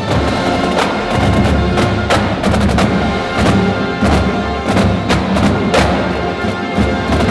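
Marching band playing: sustained brass chords over a drumline's sharp, rhythmic drum and percussion strikes.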